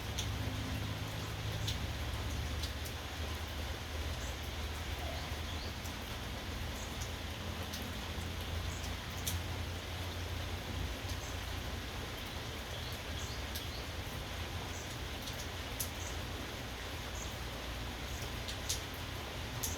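Steady rain falling, with scattered sharp drops tapping on a surface and a constant low rumble underneath.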